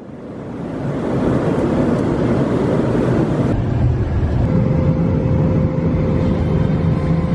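Steady rumbling drone of a jet airliner's cabin in flight, the noise of engines and airflow. It fades in over the first second and changes character a little about halfway through, when a faint steady hum joins it.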